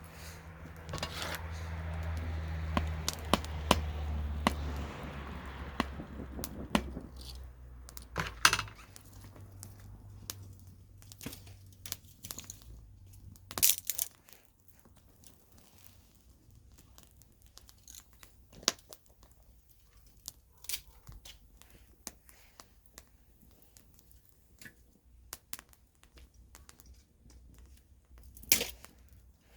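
Wood campfire crackling, with scattered sharp pops and snaps, a few of them much louder than the rest. A low rumbling rush underlies the first several seconds, then dies away.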